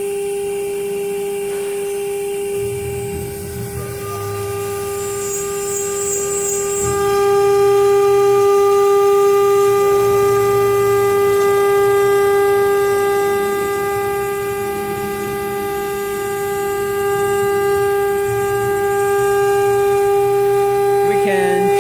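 HG-1325 stone CNC router's spindle running with a steady high whine that grows louder about seven seconds in, while a low, uneven rumble comes and goes as the machine carves.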